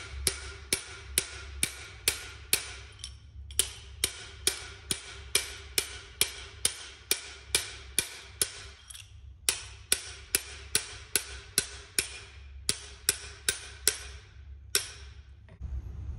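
Hammer blows on a steel swaging tool driven into the end of a copper pipe to expand it, two to three sharp ringing strikes a second in runs with short pauses. The hammering stops shortly before the end.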